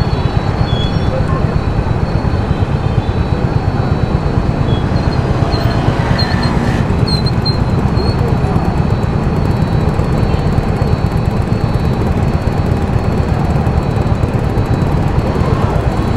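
Steady road and wind noise from a moving vehicle, with a heavy low rumble.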